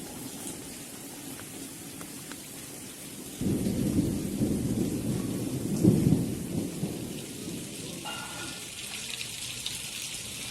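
Steady rain falling, with a roll of thunder that breaks in suddenly about a third of the way through, peaks around the middle and dies away; near the end a brighter patter of raindrops takes over.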